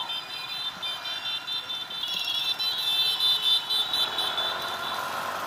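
Street traffic heard from a moving motor scooter, with a high, rapid electronic beeping that is loudest in the middle.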